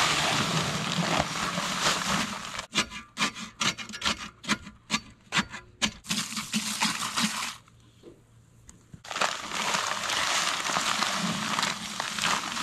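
Dry concrete mix pouring from a paper bag into a post hole with a steady hiss, broken by a run of sharp paper-bag rustles and knocks. Then a hose spray nozzle jets water into the hole. After a short lull, more dry mix pours in.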